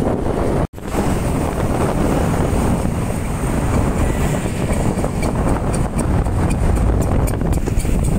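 Road traffic with big coaches driving past: steady engine and tyre noise with wind buffeting the microphone. The sound drops out for an instant under a second in, and a fast, faint high ticking joins in the second half.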